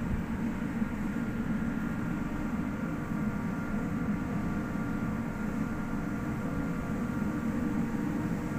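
Ship's engine-room machinery running steadily: a low drone with a few faint, steady, higher whines above it.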